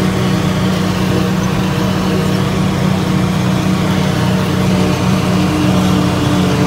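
Tractor engine pulling a pull-type forage harvester, running steadily under load as the harvester chops standing corn, a continuous mechanical drone with a steady low hum. A higher hum joins about five seconds in.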